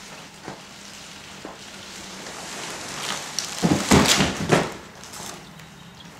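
Plastic wrapping crinkling and a cardboard box scraping and knocking as a new car radiator is pulled out of its packaging, with a burst of loud rustling and knocks a little past halfway through.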